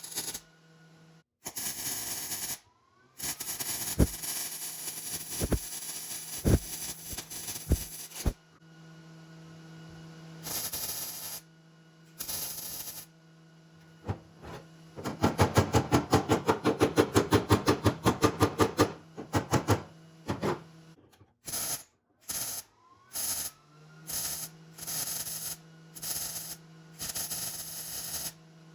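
Short clips of car-body metalwork cut one after another: stretches of noisy grinding and the crackle of welding on a patch floor pan, with a run of fast, even pulses, about eight a second, near the middle.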